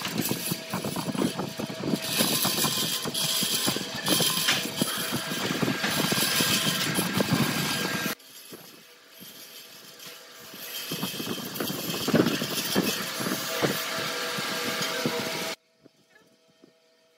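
Bandsaw running, its blade cutting notches into a wooden ring with rough rasping strokes. The sound drops suddenly about eight seconds in and cuts off almost to silence near the end.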